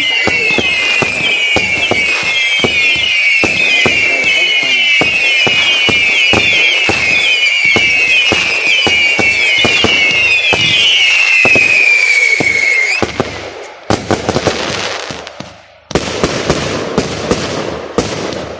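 Fireworks display: whistling shots fire in quick succession, their falling whistles overlapping, over a steady run of sharp bangs. The whistles stop about 13 seconds in, and a cluster of bangs follows. Then comes a burst of crackling with more bangs near the end.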